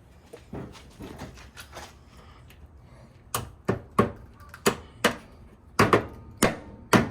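Metal striking a car body panel: about eight sharp knocks, roughly two a second, in the second half, the last few with a brief metallic ring, after a few seconds of light handling noises. This is the sound of panel repair work on the sheet metal.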